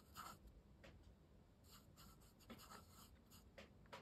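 Watercolour brush stroking wet paint across rough cotton rag paper: a few faint, short brushing strokes.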